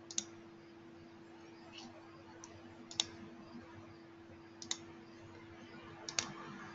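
Computer mouse clicking: a quick double click at the start, then a few single clicks a second or more apart, over a faint steady hum.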